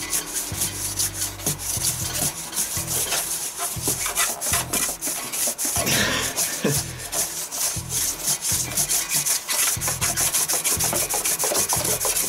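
Metal hard drive rubbed back and forth across an MDF board in quick repeated strokes, over the low hum of a microwave-oven-transformer electromagnet switched on beneath the board.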